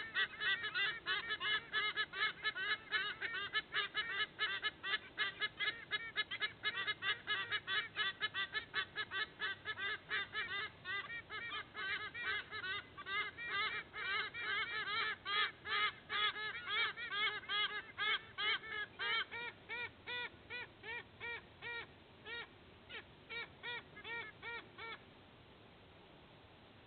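A pair of white-bellied sea eagles calling: a long run of loud, goose-like honking notes, several a second, which thin out and stop shortly before the end.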